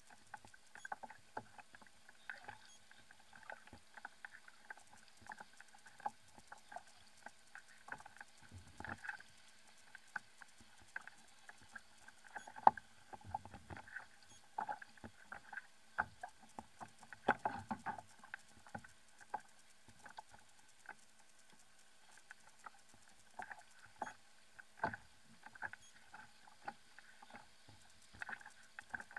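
Irregular light clicks and taps from a fishing kayak and its rod-and-reel tackle, several a second, with a few louder knocks, the sharpest about halfway through; the tackle is loaded by a large fish.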